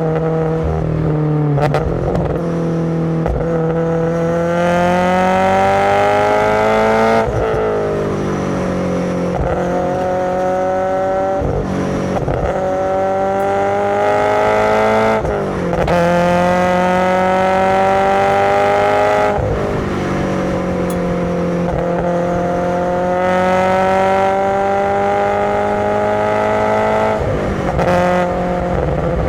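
Subaru BRZ's FA20 flat-four on SARD individual throttle bodies, revved hard through the gears: the pitch climbs over several seconds, then drops sharply at each shift or lift, about five times.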